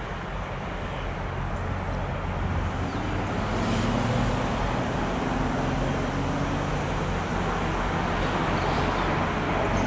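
Diesel locomotives idling: a low, steady engine rumble with a hum that grows somewhat louder about two to three seconds in.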